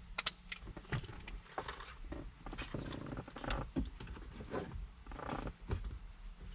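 Hands working a plastic roof clearance light housing and its bolts: scattered light clicks and taps, with short scraping or rubbing stretches about three seconds in and again near five seconds.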